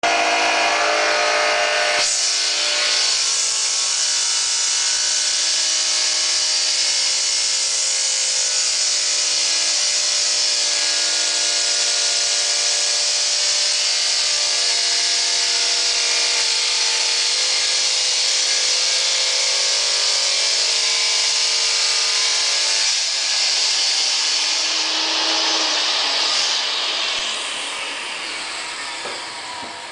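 Wet tile saw cutting ceramic tile: a loud, steady motor whine under the hiss of the blade grinding through the tile as it is pushed along the sliding table. Near the end the sound fades away.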